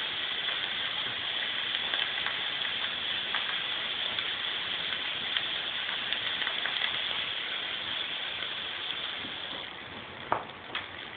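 Fog machine hissing steadily as it pumps out fog, tapering off near the end, followed by two sharp clicks.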